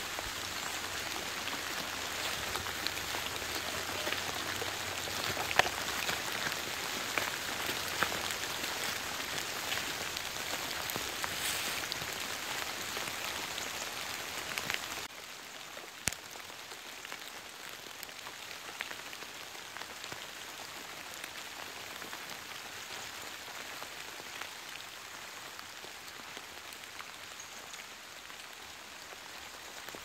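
Light rain pattering on wet fallen leaves, with scattered sharper drips. It is quieter after a cut about halfway through.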